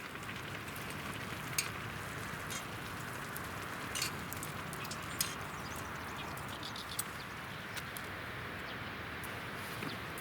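Steady rush of a river, with a campfire crackling over it in scattered sharp pops, a few of them louder.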